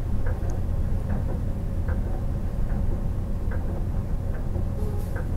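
Bus interior: low, steady engine and road rumble with a faint hum, and faint regular ticks a little more than once a second.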